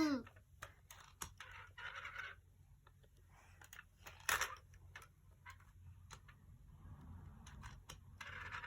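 Quiet room with scattered light clicks and soft rustling from small objects being handled, a sharper rustle about four seconds in.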